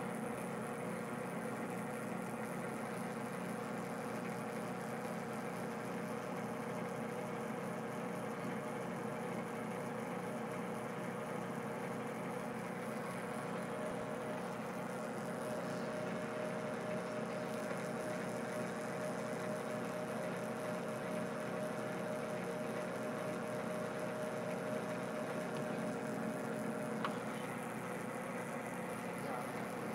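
Metal lathe running steadily with its motor and gear train whirring, spindle in reverse and lead screw engaged, during a single-point threading pass with a carbide tool on a resin pen blank. A small click sounds near the end.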